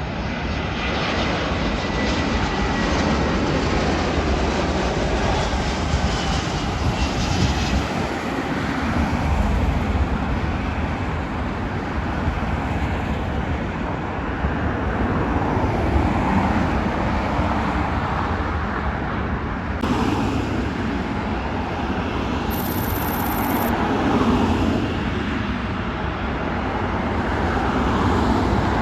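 Jet airliners landing: the steady roar of an Airbus A320's IAE V2500 turbofans, then, after an abrupt cut about 20 seconds in, the engines of an arriving Boeing 737-700.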